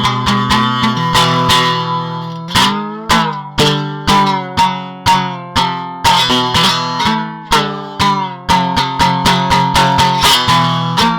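Hekaton ST 63 guitar being played, picked notes and chords, each ringing out from a sharp attack and dying away before the next.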